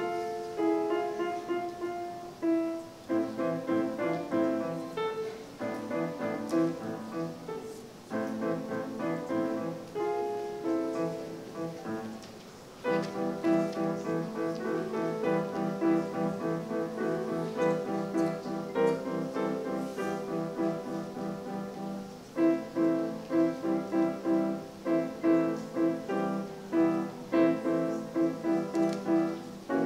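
Kawai grand piano played solo, a run of notes and chords. The playing thins briefly a little before halfway, then comes back fuller, with evenly repeated, accented chords in the later part.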